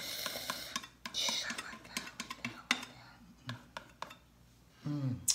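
Steel palette knife scraping across a stretched canvas as it spreads and chops thick acrylic paint: scratchy scraping in the first second or so, then a few sharp taps of the blade. A short voiced murmur comes near the end.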